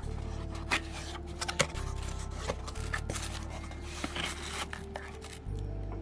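Handling noises: scraping, rubbing and sharp clicks from the light being handled, over low background music whose bass notes change every second or two.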